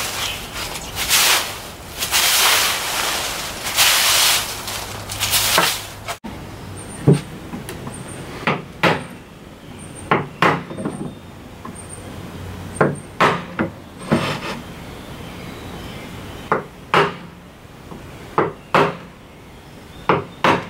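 A push broom sweeping loose wood shavings across a concrete floor, in rough strokes about once a second. About six seconds in, this gives way to a string of short, sharp knocks and scratches from a knife blade working along the edge of a cherry board on a wooden workbench.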